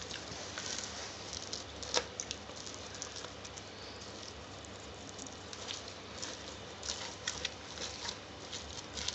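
Gloved hands squishing and mixing flaked mackerel with chopped onions and chilies in a plastic bowl: soft wet rustling with scattered small clicks, one sharper click about two seconds in.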